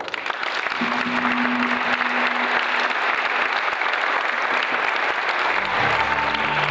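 Audience applauding: a steady patter of many hands clapping. Background music comes in under the applause near the end.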